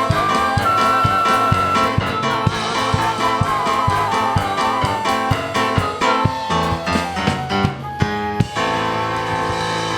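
Live worship band with singers, keyboard and a steady drum beat. The song ends with a few accented hits, then a held final chord.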